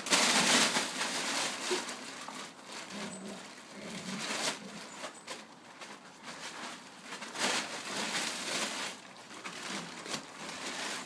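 Plastic tarpaulin crinkling and rustling in repeated bursts as dogs move about underneath it, loudest in the first second.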